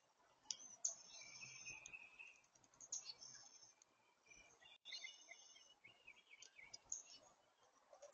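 Faint songbird chirps and short warbling calls, high-pitched and coming in quick phrases, with a few sharp clicks among them.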